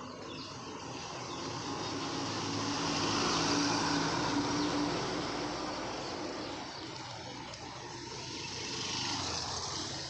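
A motor vehicle passing on the road: engine and tyre noise swell to their loudest a few seconds in and then fade away. A second, quieter vehicle passes near the end.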